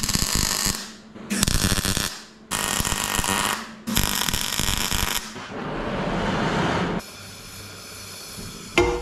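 MIG welder laying short crackling beads in four runs with brief pauses, joining a steel pipe to a cast-iron exhaust manifold. From about seven seconds a gas torch flame hisses steadily, and a sharp hammer blow rings out just before the end.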